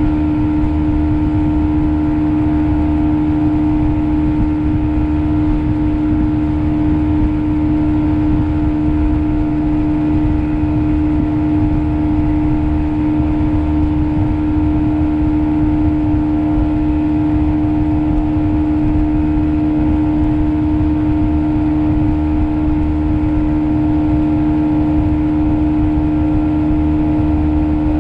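Small outboard motor running at a steady speed under way, holding one even pitch. It is running again after a mouse-chewed spark plug wire was repaired.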